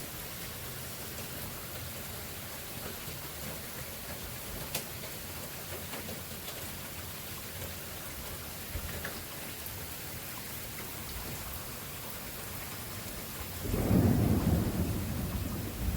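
Steady heavy rain, an even hiss with a few separate drop ticks. Near the end a loud low rumble of thunder rolls in and keeps going.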